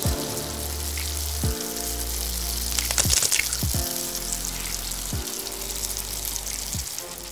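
Background music with a deep bass line, over a continuous sizzle of chicken frying in a pan.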